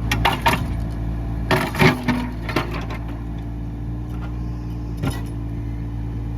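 Volvo mini excavator's diesel engine running steadily under load, with the bucket clanking and scraping against rock and dirt in several bursts: a cluster at the start, a louder one about two seconds in, and a single knock near the end.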